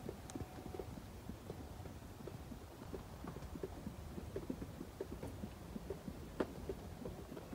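Footsteps moving over a debris-strewn old wooden floor: irregular soft knocks and crunches, with a faint brief creak near the start and a sharper click about six and a half seconds in.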